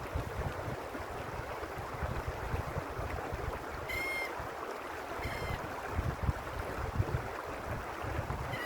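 Stream water rushing steadily, with a bird giving two short calls about four and five seconds in.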